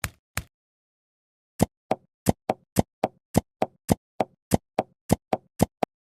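A series of short, sharp knocks with dead silence between them: two knocks, a pause of just over a second, then a quick even run of about sixteen knocks, roughly four a second.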